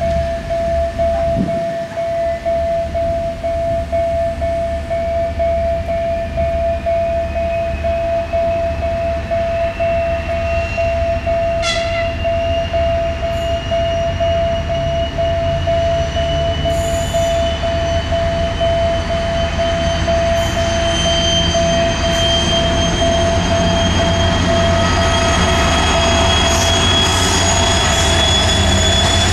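TEP70 diesel-electric locomotive under power, a low engine rumble with a whine that climbs steadily in pitch, getting slightly louder as it comes on. A steady high tone sounds throughout.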